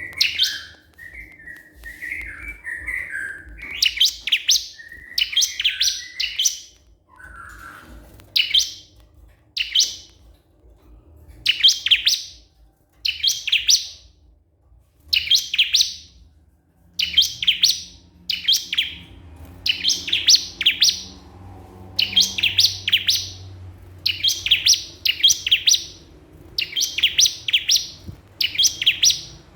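A ciblek kristal, a small prinia, singing in its calling-a-rival manner. It gives short bursts of rapid, high chirping notes, repeated roughly once every second or so, after a few seconds of lower, softer twittering at the start.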